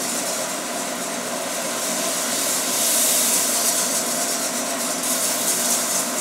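Steady frying hiss of a flour-and-margarine roux cooking in a hot pan as it is stirred with a whisk, slightly louder about three seconds in.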